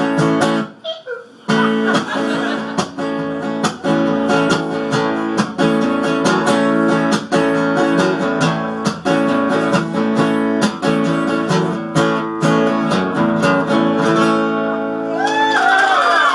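Acoustic guitar strummed in a steady rhythm, with a short break about a second in, closing out a song. Near the end the crowd breaks into cheering and clapping.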